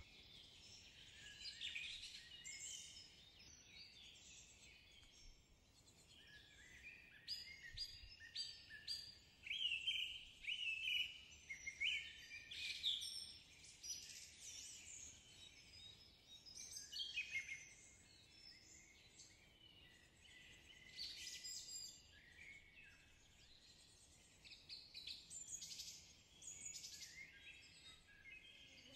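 Birds chirping and singing faintly: many short, quick notes that come in bursts every few seconds.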